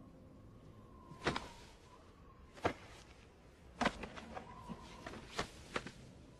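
Five sharp knocks at uneven intervals over a faint background hiss, the last two close together.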